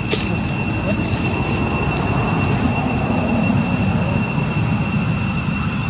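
Insects droning in one steady high-pitched whine over a low background rumble, with a single sharp click just after the start.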